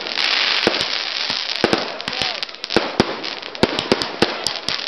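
Aerial fireworks bursting overhead: a rapid, irregular run of sharp bangs over a continuous crackle, with the crackle densest in the first second.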